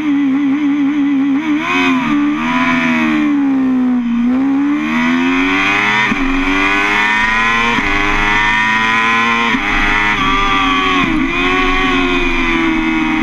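BMW S 1000 RR's inline-four engine held at wavering high revs, then launching from a standstill and accelerating hard. Its pitch climbs and drops sharply at each of four quick upshifts in the second half.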